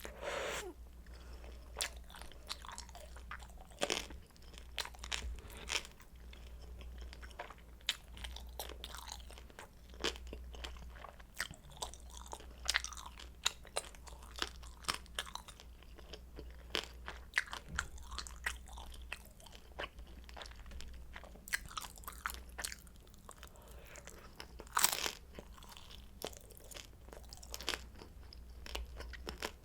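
Close-miked chewing and crunching of crispy pan-fried kimchi dumplings, with many sharp crunches and one louder crunch late on, over a steady low hum.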